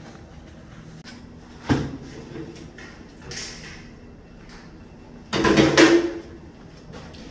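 Handling noises on a tiling job: a knock about a second and a half in, a short hiss a little later, and a louder half-second scrape or clatter about five and a half seconds in.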